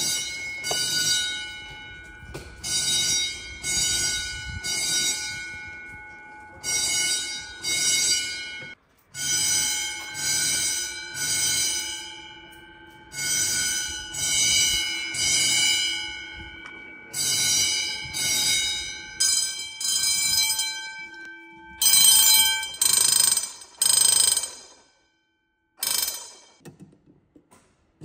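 Fire alarm bells ringing in the code-3 (temporal-three) pattern: three rings about a second apart, then a pause, over and over, each ring leaving a lingering metallic overtone. Near the end a last short ring is followed by silence as the bells stop.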